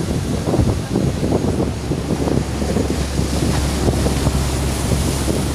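Wind buffeting the microphone over the rush of sea waves, in gusts, with a steady low hum coming in about halfway through.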